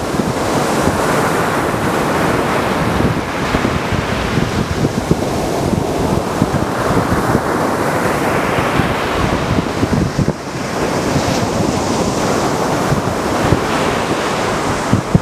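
Mediterranean surf: waves breaking and washing up a beach in continuous swells, with wind buffeting the microphone.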